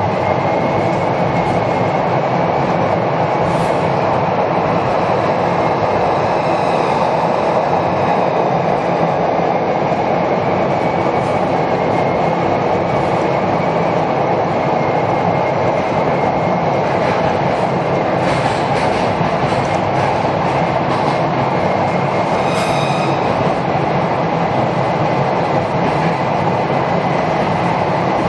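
SEPTA Broad Street Line subway train running through a tunnel, heard from inside the car: a steady, loud rumble of wheels on rail with a faint high whine. A couple of brief high squeals come in the second half.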